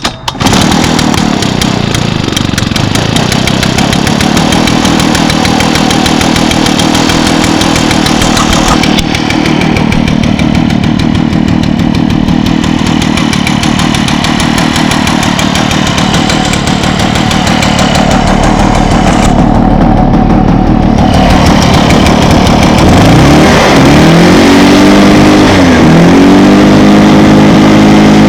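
Echo PB500T backpack leaf blower's 50.8cc two-stroke engine running steadily. Near the end it is throttled down and back up, then held at a higher speed.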